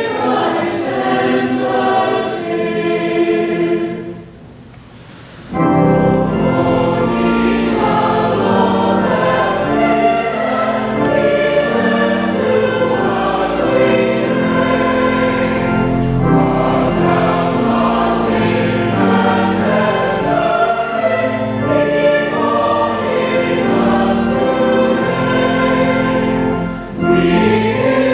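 Mixed school choir singing a Christmas carol, with organ accompaniment. The music breaks off briefly about four seconds in, its echo dying away, then the choir comes back in with fuller, lower chords.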